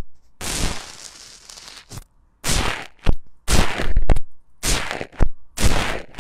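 Slime being squeezed and poked by hand, a run of short crackling squishes about one or two a second, the first one drawn out.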